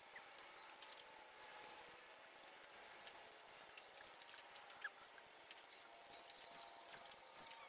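Near silence: faint outdoor ambience with scattered faint high chirps and a few small ticks over a low steady hum.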